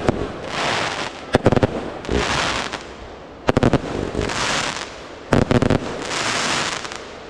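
Aerial fireworks display: quick volleys of sharp bangs from bursting shells, each followed by about a second of crackling from the falling stars. The pattern repeats every couple of seconds.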